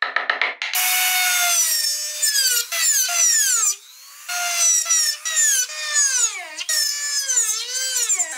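A few sharp taps of a hand carving tool, then a handheld rotary tool drilling into a small wooden wheel to hollow out the spaces between the spokes. Its whine drops in pitch each time the bit bites into the wood and rises again as it eases off, with a brief let-up about four seconds in.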